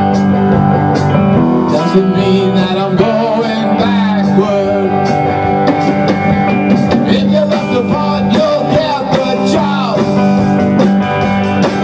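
Rock band playing live: electric guitars, bass guitar and a drum kit, with cymbal and snare strokes throughout and some notes bending in pitch.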